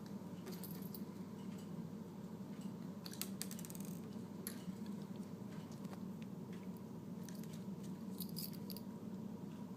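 Faint scattered clicks and ticks of a small screwdriver driving tiny screws into a model helicopter's plastic skids, with a quick run of clicks about three seconds in, over a steady low hum.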